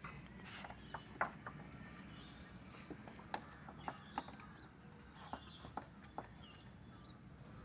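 Sparse light taps and clinks on a steel plate as hands press and shape a ball of paratha dough, about one or two a second, with a few faint bird chirps.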